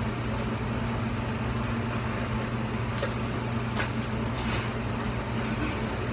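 Steady low mechanical hum, like a kitchen fan, with a few brief soft hisses in the middle as a container of salt is poured into the pot.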